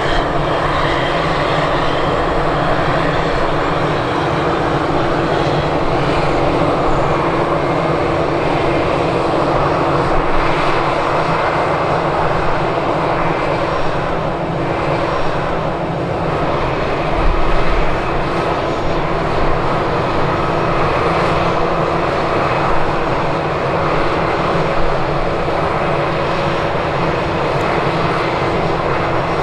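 Aircraft engines running steadily: a continuous loud drone with a low steady hum.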